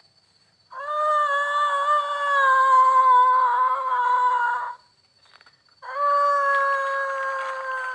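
Two long, drawn-out howls, dog-like. The first lasts about four seconds; the second starts about a second later and sags in pitch as it trails off near the end.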